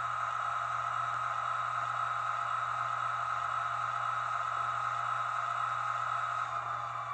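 Recorded J47 jet engine sound played through the small speaker of an N scale model railcar's DCC sound decoder: a steady whine over a hiss. About six and a half seconds in, the whine dips slightly in pitch and gets a little quieter.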